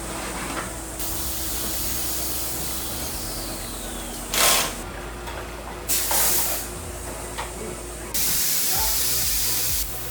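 Pressurised gas hissing in several bursts: short loud ones about four and a half and six seconds in, and a longer steady one of about one and a half seconds near the end, over a faint steady hum.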